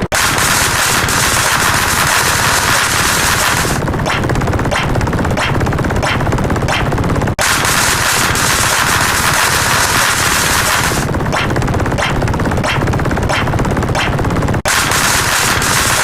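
Rapid machine-gun fire sound effect, looped: each pass of about seven seconds starts as a dense rattle and thins into separate shots before cutting off and starting over.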